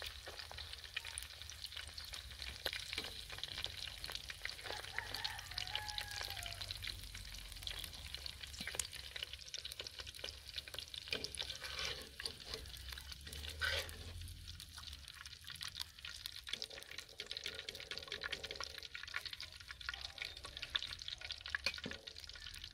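Hot oil sizzling and crackling in a clay karahi after a batch of onion pieces has been fried, with a wire skimmer lifting the onions out and a few sharper clicks along the way.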